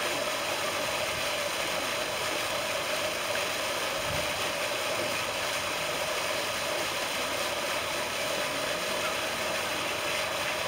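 Pond fountain jet splashing steadily down onto the water: an even, unbroken rush of falling water.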